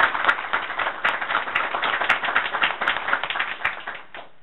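Audience applauding, with dense rapid hand claps that fade out near the end.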